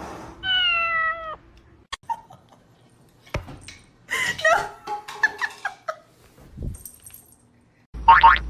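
A cat meowing: one long, slightly falling meow about half a second in, followed a few seconds later by a run of shorter calls.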